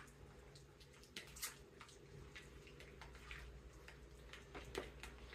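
Faint, irregular clicks and scrapes of a fork against a plastic bowl, mashing egg salad into small pieces.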